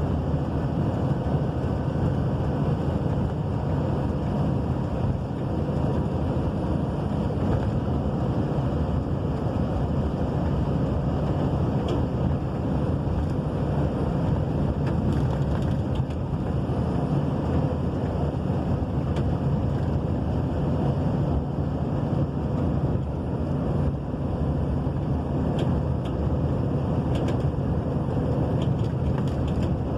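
Heavy rain falling, a steady rushing noise that is strongest in the low range, with a few faint ticks near the end.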